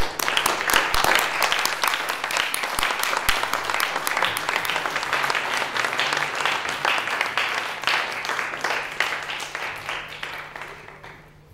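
Audience applauding, starting suddenly and dying away over the last couple of seconds.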